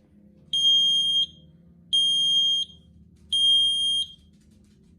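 Smoke detector's alarm sounding: three loud, high-pitched beeps, each about 0.7 s long with short gaps, then a pause before the pattern repeats. This is the three-beep temporal pattern of a smoke alarm in full alarm.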